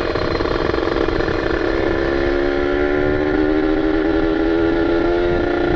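Kawasaki Ninja 150 RR's ported single-cylinder two-stroke engine pulling steadily on the road, its pitch climbing slowly from about two seconds in. The engine is freshly rebuilt and being run in.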